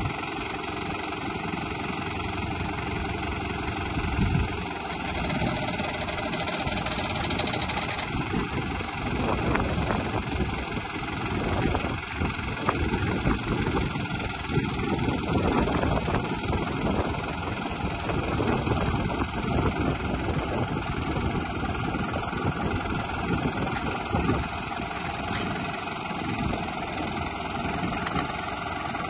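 Farm tractor's diesel engine running while its hydraulic arm lifts a heavy bundle of irrigation pipes onto a trailer. The engine sound is steady at first, then louder and more uneven through the middle of the lift.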